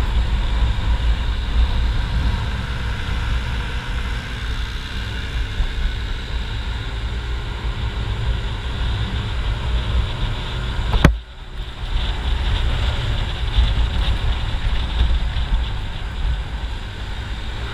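Riding noise from a motor scooter: engine and road noise mixed with heavy wind rumble on the microphone. About eleven seconds in there is a sharp click and a brief drop in level.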